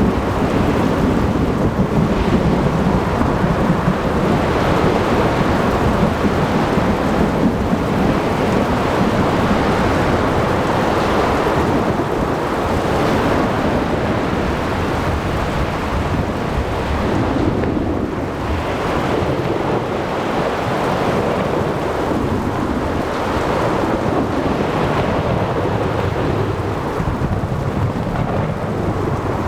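Thunderstorm: thunder rumbling continuously over steady heavy rain, easing slightly a little past the middle.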